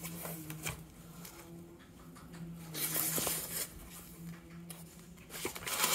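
Soft rustling and small clicks of objects being handled, with a louder rustle about three seconds in, over a steady low hum.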